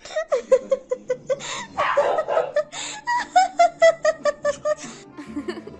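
A person laughing hard in quick repeated bursts, about four or five a second, with one longer burst about two seconds in.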